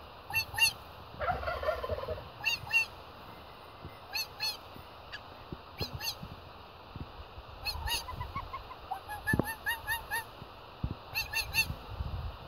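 Broody Muscovy duck hen calling with short, high, squeaky notes, often in pairs, repeated on and off every second or two.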